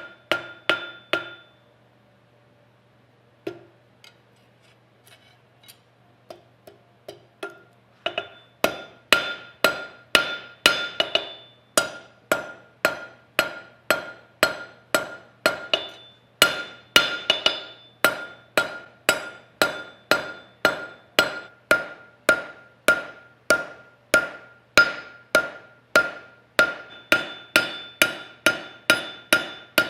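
Hand hammer forging steel on an anvil: sharp metallic blows, each leaving a high ring, at about two to three strikes a second. There is a pause of several seconds with only a few light taps early on, then steady striking resumes.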